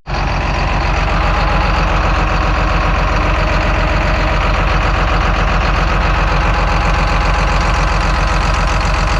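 A small engine running steadily under a loud, continuous hiss of compressed air being blown over the loader's engine during cleaning.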